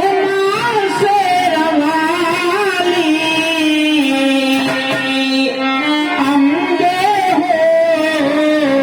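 A man singing a devotional vandana in a slow, ornamented melody with long held notes, accompanied by dholak drum.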